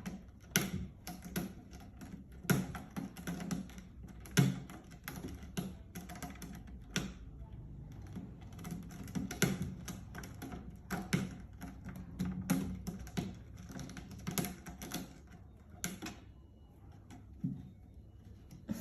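Irregular sharp clicks and taps, clustered unevenly and some much louder than others, over a low steady hum.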